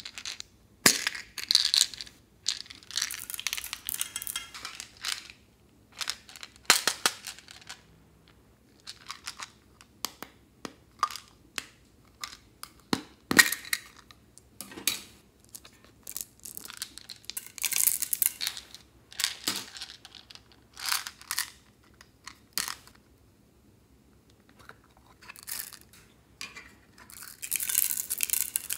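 Small plastic beads and makeup being tipped out of plastic containers into a glass tray: scattered clicks, clinks and rustles as lids and cases are handled and beads drop in, with a longer run of beads pouring near the end.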